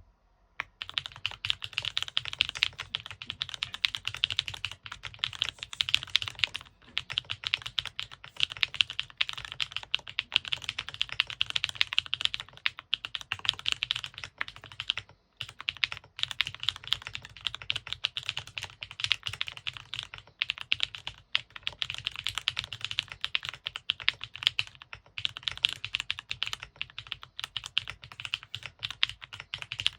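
Fast, continuous typing on a Neo Ergo mechanical keyboard with Gateron Mini-i switches on a carbon-fibre plate, case foam only, and KKB Pumpkin Spice Latte keycaps: a rapid stream of keystroke clacks with a few brief pauses, starting just under a second in.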